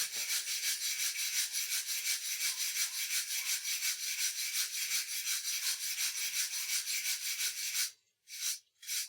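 Stainless steel wire brush scrubbing aluminium back and forth in quick, even strokes, about four or five a second, to clean the metal before welding. The scrubbing stops about eight seconds in, followed by two short strokes.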